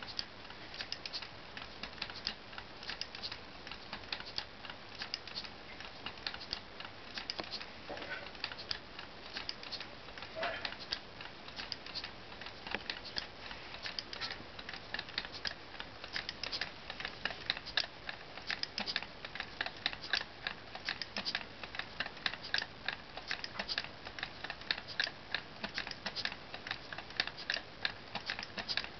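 LEGO Technic two-cylinder pneumatic engine running: a rapid, continuous clatter of plastic clicks from its cylinders, valve and gearing, several clicks a second.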